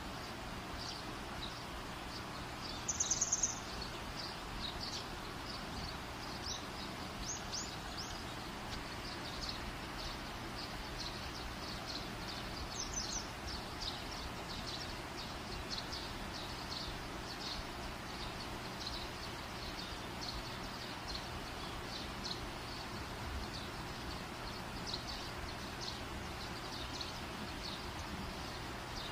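Faint high chirps of small birds repeating over a steady hum and hiss, with a short burst of quick chirps about three seconds in and a few more around thirteen seconds.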